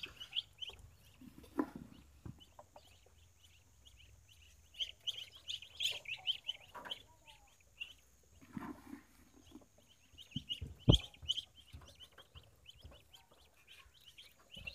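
Young Muscovy ducklings peeping rapidly and continuously while feeding, short high calls repeated several times a second, with a few knocks, the loudest about eleven seconds in.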